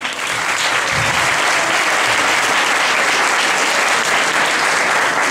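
Audience applauding, steady clapping that cuts in abruptly and holds evenly.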